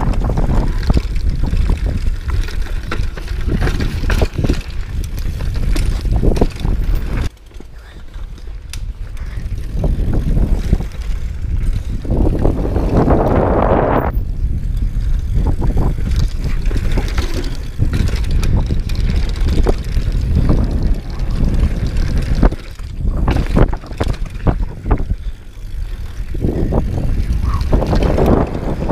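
Wind rumbling over the microphone while a Specialized Demo 8 downhill mountain bike runs down a dirt trail, its tyres crunching over dirt and rocks and the bike rattling and knocking over bumps. The rumble dips briefly about a quarter of the way through.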